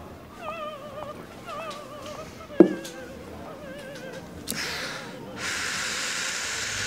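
Soft operatic music with a heavily vibrato singing voice. About two and a half seconds in there is a single sharp knock, the loudest sound, and from about four and a half seconds a young man takes long, heavy breaths as he tries to hold back tears.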